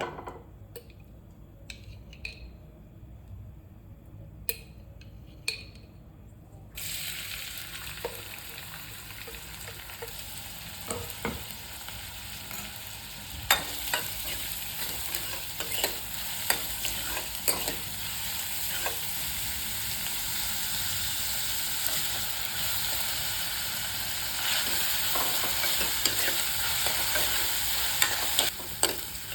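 A few light clinks of utensils, then about seven seconds in a sudden sizzle of frying in hot ghee in a pan. The sizzle carries on and grows louder toward the end, with a spatula tapping and scraping against the pan as it is stirred.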